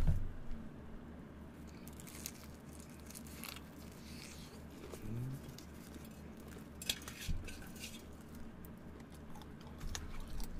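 A person chewing crispy fried chicken with the mouth closed, with a few short crisp crunches of the batter scattered through; a steady low hum runs underneath.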